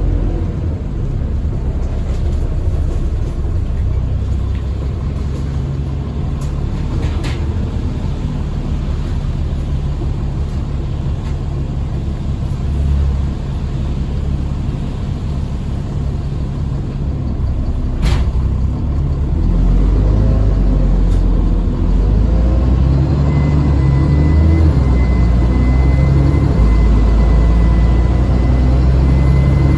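ADL Enviro 400 Trident double-decker bus engine running under way, a steady low rumble with a sharp knock about 18 seconds in. About 20 seconds in the engine note grows louder and heavier as it pulls. From about 23 seconds a thin, steady high turbo whine sits above it.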